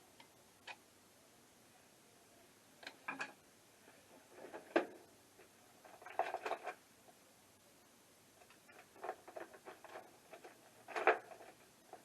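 Small metal clicks, taps and short scrapes in scattered clusters: a tool working at a stubborn retaining clip on a carburetor's choke linkage.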